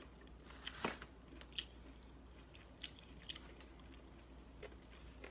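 Mouth sounds of people eating a burger and onion rings: quiet chewing with a few short, crunchy bites and smacks, the loudest about a second in.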